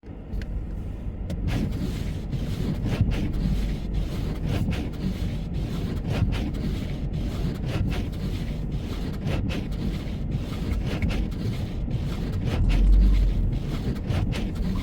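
Car driving on snowy roads: a steady low rumble with wind noise on the microphone. Many small irregular clicks run through it, and a low surge comes about 13 seconds in.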